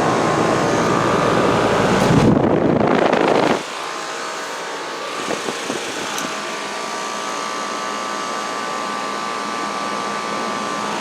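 Outdoor heat pump or air-conditioner condensing units running, a steady hum of fan and compressor with several fixed tones. It is louder for the first three and a half seconds, then drops suddenly and carries on quieter.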